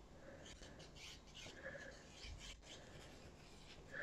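Faint scratching and rubbing of a glue pen tip drawn along a piece of cardstock, with light paper handling.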